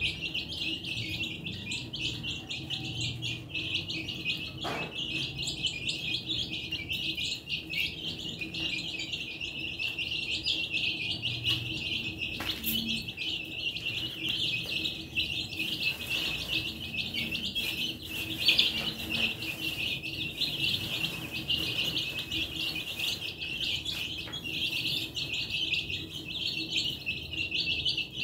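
A flock of baby chicks peeping continuously, many high overlapping cheeps at once.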